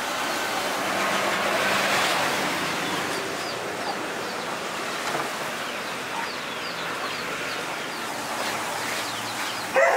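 A steady rushing noise, swelling about two seconds in, with many short, high chirps of small birds or chicks from a few seconds in onward.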